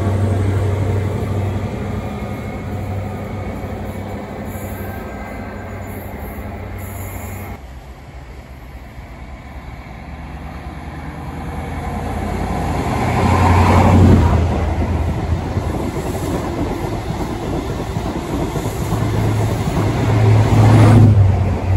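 Diesel engine drone of InterCity 125 HST Class 43 power cars. A departing train's rear power car fades as it runs away. After a cut, another HST approaches and passes close by, its engine drone and wheel noise swelling to a peak as each power car goes by, first about 14 seconds in and again near the end.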